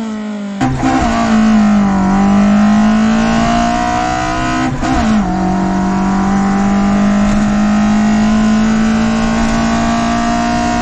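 Toyota 4A-GE 20-valve silver top four-cylinder engine, breathing through individual throttle bodies and intake trumpets, pulling under load through the gears. Its pitch climbs steadily, with sharp drops at gear changes about half a second in and again about five seconds in.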